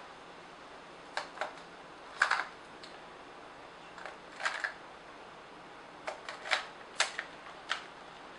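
AA batteries clicking and clacking as they are pushed into a Nikon SB900 flash's plastic battery compartment and the compartment is closed up: a scatter of sharp short clicks in small clusters, busiest in the last couple of seconds.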